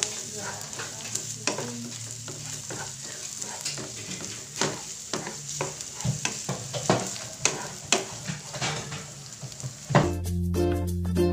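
Diced onion sizzling in hot oil in a nonstick frying pan, stirred with a wooden spatula that scrapes and knocks against the pan many times at an uneven pace. Background music comes in near the end.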